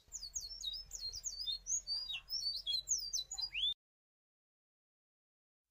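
Small birds chirping, many quick high chirps crowding over one another, cutting off suddenly a little before four seconds in.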